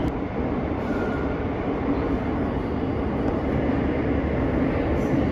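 Madrid Metro Series 8000 train running, heard from inside the carriage: a steady rumble of wheels on rail and car noise.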